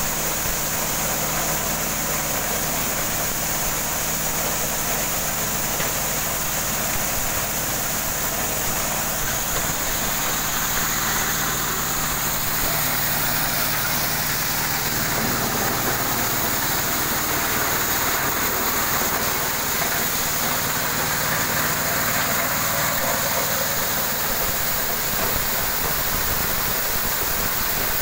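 Small-engine-driven corn sheller running steadily while ears of corn are fed through it: a constant engine note under a continuous rattling hiss of cobs and kernels going through the machine.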